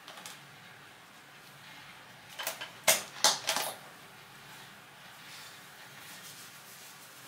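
Small hard objects clicking and clattering against a bathroom counter: a quick cluster of knocks about two and a half seconds in, the loudest two close together around three seconds.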